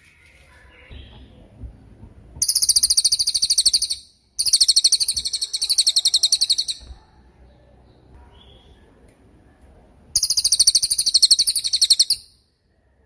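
Cililin bird singing three long, very high, rapid trills, each lasting about two seconds, with short pauses between them.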